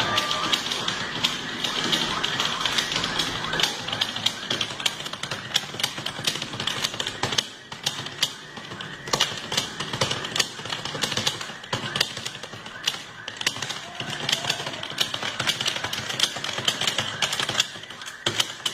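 Computer keyboard typed at very high speed: a dense, rapid stream of keystroke clicks with a couple of brief pauses.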